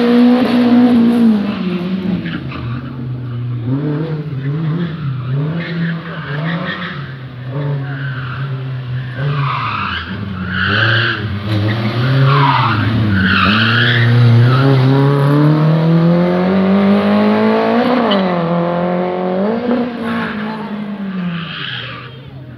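Slalom race car's engine revving hard through the cones, its revs rising and falling again and again with the throttle. Tyres squeal about ten to fourteen seconds in, then the revs climb steadily before dropping twice and fading as the car drives off.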